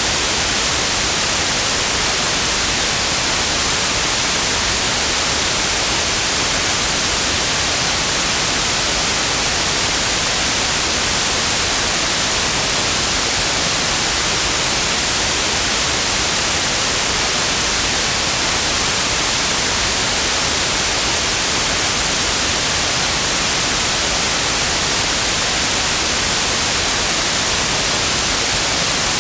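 Steady, unbroken white noise: an even hiss, brightest in the high frequencies, with no change throughout.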